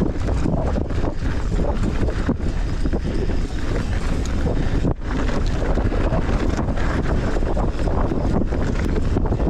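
Wind buffeting the microphone: a loud, steady rushing rumble with small dips.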